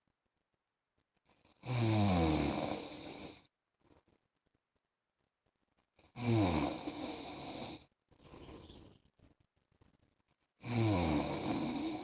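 A man snoring: three long snores about four and a half seconds apart, each sliding down in pitch. A faint hiss falls between the second and third.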